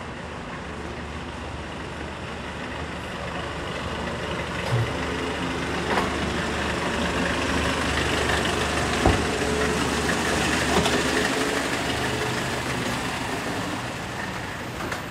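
A heavy vehicle's engine humming as it passes slowly close by, growing louder toward the middle and fading near the end, with a few short clicks over the top.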